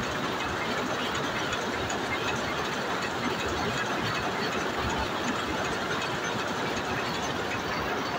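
Jacquard power loom weaving, a steady, dense mechanical clatter with fine rapid ticks and no let-up.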